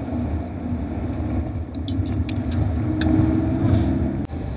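Inside the cabin of a Porsche 964 Carrera 4 on the move: the air-cooled flat-six engine running with road rumble, a few light ticks, and a sharp click near the end.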